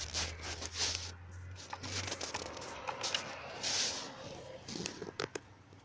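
Car intake parts being worked into place by hand: irregular rustling and scraping, with a few sharp clicks about five seconds in.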